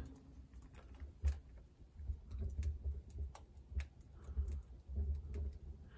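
Faint crackling of a freshly lit wood fire inside a barrel stove: scattered, irregular sharp pops and ticks as the kindling catches.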